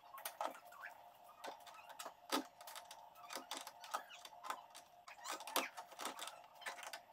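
Irregular light metallic clicks and taps of a hand wrench and small hardware being handled, about one or two a second, over a faint steady hum.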